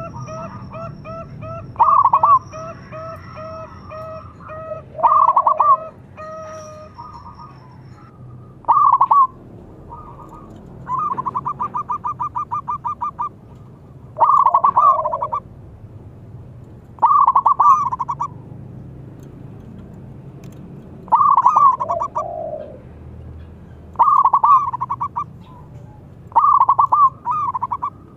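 Zebra dove (perkutut) cooing: short loud phrases of rapid, stuttering coos about every three seconds, with one longer even string of quick notes midway. A fainter rapid run of calls sounds beneath the first several seconds.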